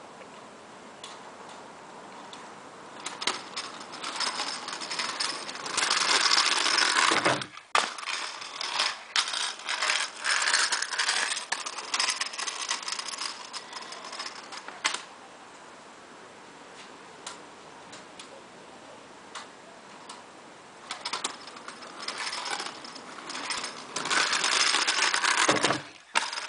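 Small hard wheels of a kickboard rolling over rough asphalt, with rattles and clicks. The rolling noise swells twice: it is loudest about six to seven seconds in and cuts off sharply, then comes back near the end as the rider passes close.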